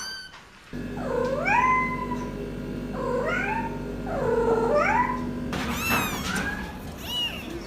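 Kitten meowing: three drawn-out meows, each rising in pitch and then held, followed by several shorter, higher-pitched mews near the end.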